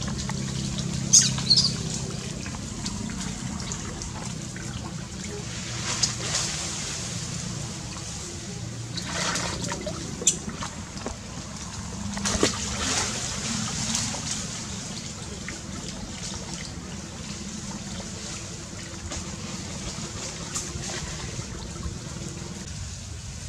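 Water splashing and sloshing as macaques swim in a muddy pool, with several short, louder splashes scattered through.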